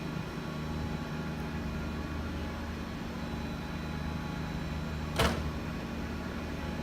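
Steady electrical hum of a stationary electric train, several fixed tones over a low drone, with one sharp click about five seconds in.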